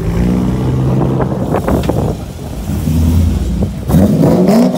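Chevrolet Corvette C6's V8 running as the car rolls past at low speed. About four seconds in it revs up with a rising pitch, the loudest part.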